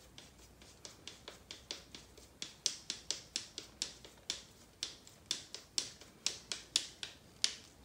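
Hex driver turning a screw into an RC car's rear shock tower and transmission: a steady run of small sharp clicks, about four a second, louder from about two and a half seconds in.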